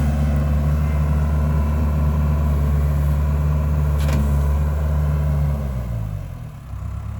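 Case 1840 skid steer's four-cylinder diesel engine running steadily at speed, then throttled down about five and a half seconds in, its pitch sliding down to a lower idle. A single short click about four seconds in.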